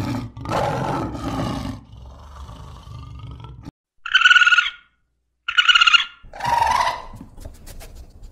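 A lion growls low and rough for the first three or four seconds. Then come three short, high trilling calls of a raccoon, one after another.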